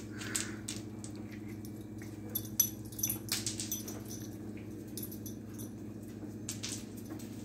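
A small dog scrabbling after an ice cube on a ceramic tile floor: scattered clicks and taps of claws and the ice cube on the tiles. The sharpest tap comes about two and a half seconds in, with a cluster just after it and another near the end, over a steady low hum.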